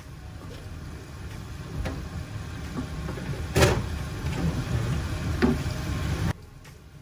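Wooden spoon stirring thick yema custard in a pan on the stove, with the spoon scraping or knocking the pan a few times, the loudest near the middle. Under it is a low rumble that grows and then cuts off suddenly about six seconds in.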